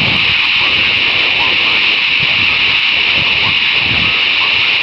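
Air traffic control radio channel open with a steady band of static hiss and no clear words. The hiss switches on and off abruptly, the way a radio transmission keys up and drops. A faint low jet-engine rumble runs underneath.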